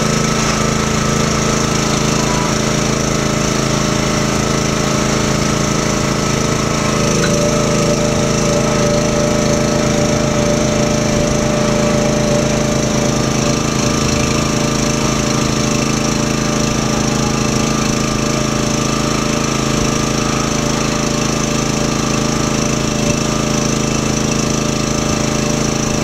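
Small engine of a towable boom lift's hydraulic power unit running steadily under load while the upper boom is raised. Its note shifts slightly about seven seconds in.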